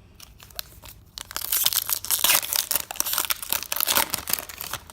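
Foil wrapper of a Pokémon trading card booster pack being torn open and crinkled by hand, a dense crackling that starts about a second in and stops shortly before the end.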